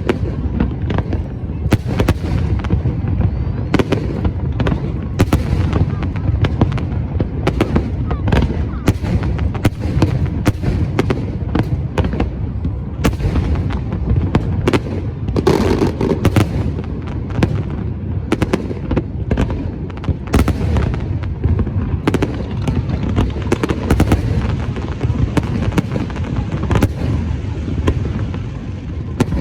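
A fireworks barrage: a dense, unbroken run of bangs and crackles, many per second, over a deep booming rumble.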